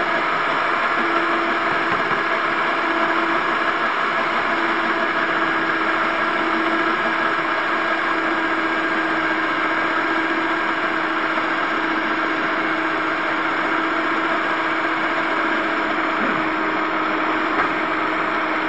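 Electric stand mixer running steadily at one speed, a motor whirr with a constant hum, its twin dough hooks beating a wet brioche batter of flour and eggs in the bowl.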